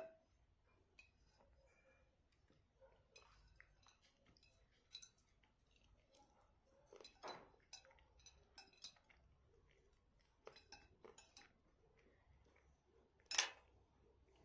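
Faint clicks and clinks of cutlery against a plate and dishes, with two louder knocks, one about halfway through and one near the end.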